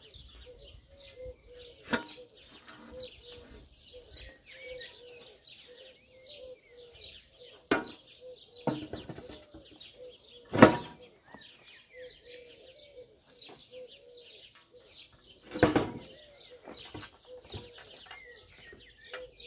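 Birds singing, with high chirps and a low cooing repeated every fraction of a second. Over them come four sharp knocks. The loudest is about ten and a half seconds in, and another is near the end.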